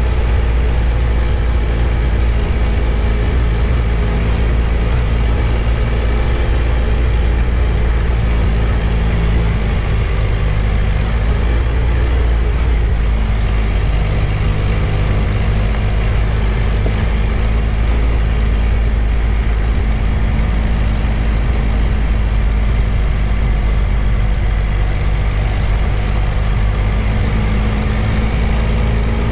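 Triumph Tiger 1200 motorcycle's inline three-cylinder engine running at a steady speed while the bike is ridden.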